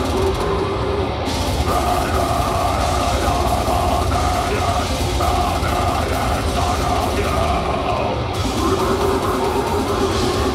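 Deathcore band playing live through a venue PA, a heavy metal wall of distorted guitars and drums recorded from within the crowd.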